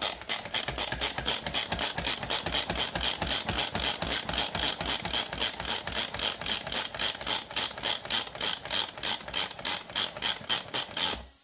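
Manual food processor worked rapidly to blend a garlic, honey and sesame-oil sauce: a fast, even clicking of about five strokes a second that stops abruptly near the end.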